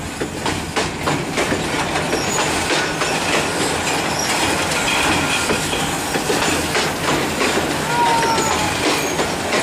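Passenger coaches of the Jaria Local train rolling past close by: a steady loud rumble of the running train with the wheels clattering over the rail joints.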